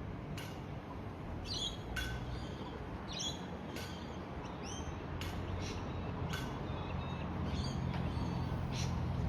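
Small birds chirping in short, sharp calls about once or twice a second, over a low steady rumble that grows a little louder near the end.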